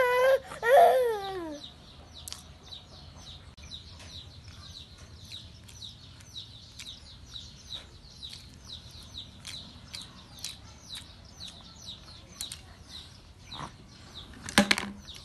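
A toddler wails in a couple of falling cries about a second in, then small birds chirp steadily, a short high chirp about twice a second. A brief loud sound cuts in near the end.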